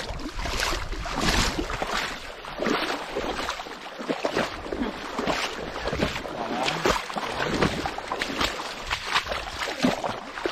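Pond water splashing and sloshing in irregular strokes as a fishing net is worked through it.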